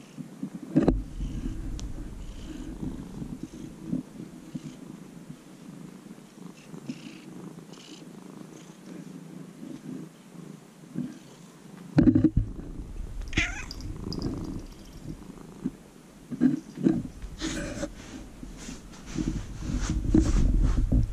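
Young orange-and-white cat purring steadily close to the microphone, with a few bumps and rustles as it rubs against the person and is stroked, about a second in, around twelve seconds in and near the end.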